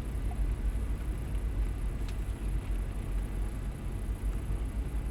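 Steady low rumble of an idling vehicle engine, with a faint light tick about two seconds in.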